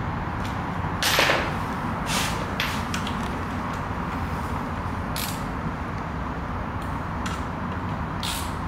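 Steady low background rumble of a workshop, broken by several brief noisy scrapes, the loudest about a second in.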